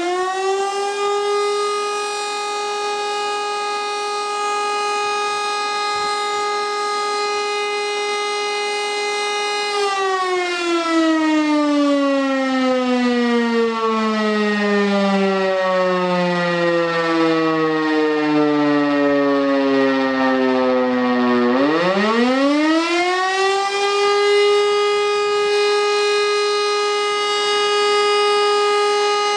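Rotary fire siren sounding the German 'Feueralarm' signal in a siren test. A steady wail is held for about ten seconds, then winds slowly down in pitch for about twelve seconds without stopping. About two-thirds of the way through it winds quickly back up to the full steady tone.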